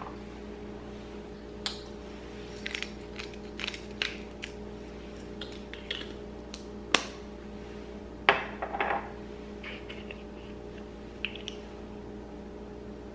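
Scattered light clicks and knocks of ceramic dishes and spice jars being handled on a kitchen countertop, the loudest about seven and eight and a half seconds in, over a steady low hum.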